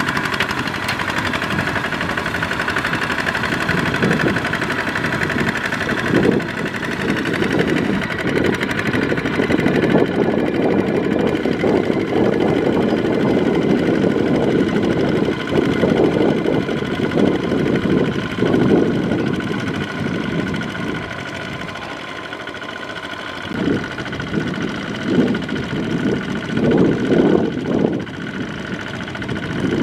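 Single-cylinder diesel engine of a two-wheel walking tractor running under load as its cage wheels churn through a flooded, muddy rice paddy. The engine runs without a break, its sound surging and easing irregularly and dropping back for a couple of seconds about two-thirds of the way through.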